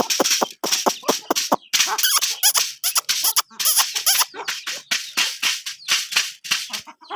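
A flock of chickens calling, many short, high, overlapping squawks and clucks in quick succession.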